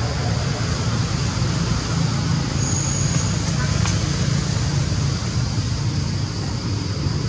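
Steady outdoor background noise: a constant low rumble under a steady high-pitched drone, with a brief high chirp about three seconds in.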